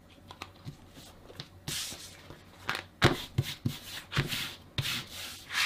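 Hands rubbing and smoothing fabric over glued cardboard pieces, a series of brushy strokes about a second apart, with a few soft knocks as the pieces are handled.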